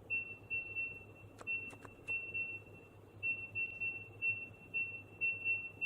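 Touch keypad of a TENON A2C smart door lock beeping once for each key pressed: a long run of short, high, identical beeps, about two a second, as a long code is keyed in with extra digits padded around the real password (anti-peep function). A few faint clicks sound about one and a half to two seconds in.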